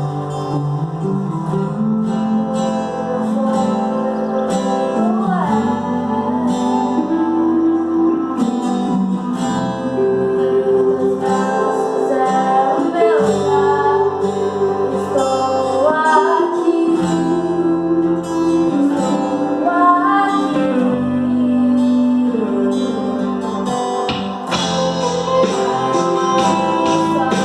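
Live acoustic worship song: a strummed acoustic guitar accompanying a sung melody in Portuguese.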